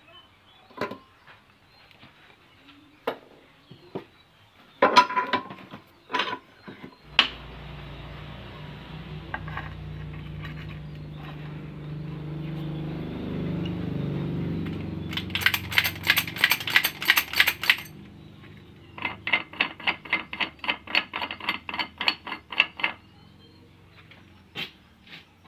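Metal workshop noises while rebuilding a car ball joint in a vise: scattered sharp metal clicks, then a steady low mechanical hum for about ten seconds, with two quick runs of rapid metallic tapping near the middle and later on.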